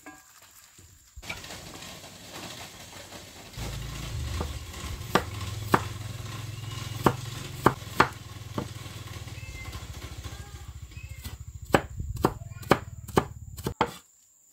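Cleaver chopping shallots on a wooden chopping board: single knocks spaced about half a second to a second apart as it slices, then a quick run of knocks near the end as they are minced, over a low steady hum.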